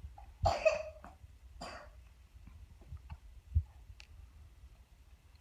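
A baby's short throat noises, two brief grunt- or cough-like sounds in the first two seconds, the first the louder, followed by faint clicks and a soft thump.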